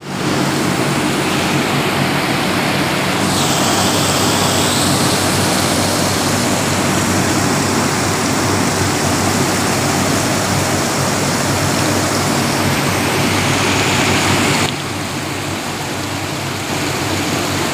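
Water raining down from a cooling tower's fill into the basin below: a steady, heavy splashing rush with a low steady hum underneath. About fifteen seconds in the rush turns quieter and duller.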